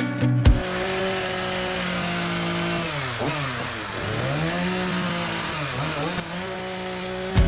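Echo two-stroke chainsaw running at high revs while carving red cedar, its engine note dipping and climbing back several times as the chain bites into the wood and is eased off.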